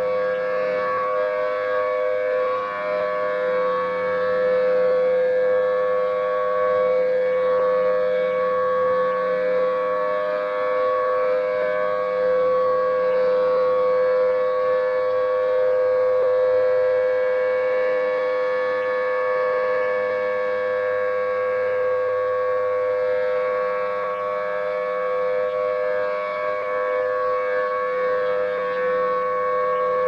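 Federal Signal Thunderbolt 1000T outdoor warning siren sounding a steady tone during a test. The pitch holds level while the loudness swells and dips gently as the rotating horn sweeps around.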